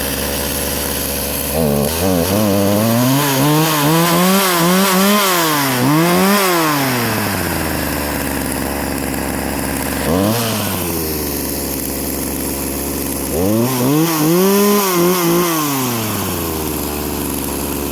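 Rebuilt two-stroke chainsaw, just started, idling and revved up and down in several throttle blips: a run of revs in the first few seconds, a single quick blip near the middle, and another run of revs near the end.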